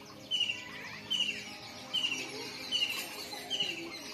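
A bird calling over and over at an even pace: a short, bright, high note a little more than once a second.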